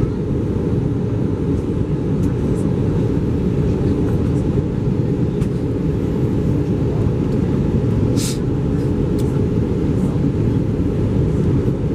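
Steady low cabin noise inside an Airbus A320 airliner in flight, the rumble of its engines and airflow. There is a brief sharp click about eight seconds in.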